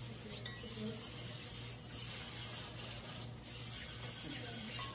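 Classroom room noise from a phone recording: a steady hiss and low hum, with faint voices in the background.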